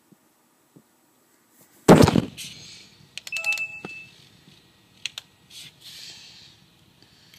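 A sudden loud thump about two seconds in, followed by rustling, a short electronic beep a second and a half later, and two sharp clicks, as someone at a laptop forces it to shut down.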